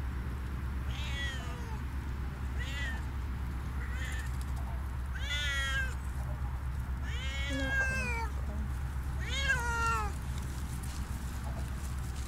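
Siamese cat meowing repeatedly, about six meows, the later ones longer and louder, each falling in pitch at the end.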